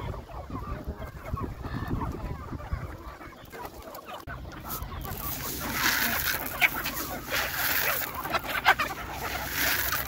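A flock of free-range desi chickens clucking while they feed, getting louder and busier from about halfway through.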